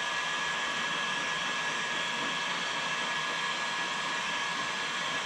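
Steady whooshing noise of an electric blower running without change, with a faint constant high whine.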